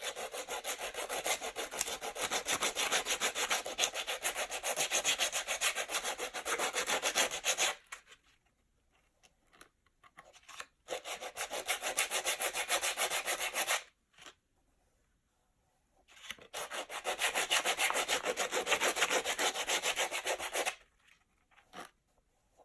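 Rough sandpaper on a wooden block rubbed fast back and forth along a shoe's sole edge, sanding off dried excess glue that squeezed out of the seam. It comes in three spells of rapid scraping strokes: a long one, a short one about halfway through and another long one near the end, with brief pauses between.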